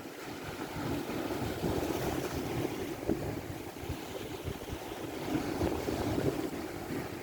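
Strong wind buffeting the microphone, gusting unevenly, over a steady rush of waves.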